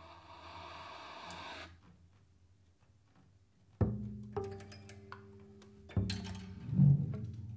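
Sparse free-improvised jazz from a quartet of piano, double bass, drums and saxophone. A held note fades out before two seconds in, and after a short pause a few single low notes ring out one at a time. A loud drum hit comes near the end.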